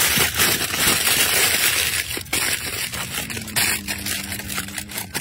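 Aluminium foil crinkling and crackling as hands fold and press a foil-wrapped packet flat, densest in the first couple of seconds, then sparser crackles.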